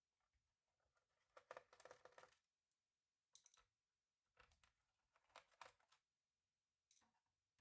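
Faint clicking and rattling of laptop parts being handled, in short clusters about a second apart, the longest about a second in.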